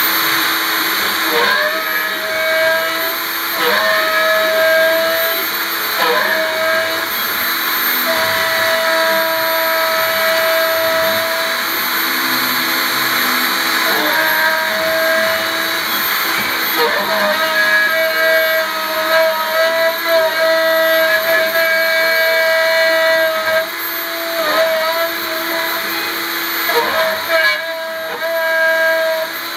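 Isel CNC gantry mill's spindle running with a steady high whine as its end mill cuts into aluminium. The cutting tone breaks off and resumes every few seconds as the tool works along its path.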